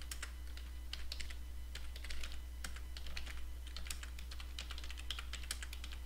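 Typing on a computer keyboard: a quick, uneven run of key clicks, over a steady low hum.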